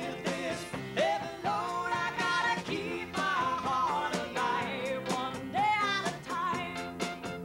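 A country band playing a song live: a sung vocal over electric guitar, keyboard and drums, with a steady beat.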